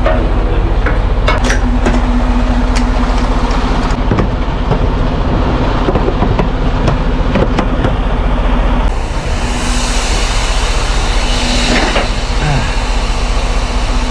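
Semi-truck cab noise while driving: a steady engine drone under loud rain and road noise, with scattered sharp ticks. About nine seconds in the sound abruptly turns brighter and hissier.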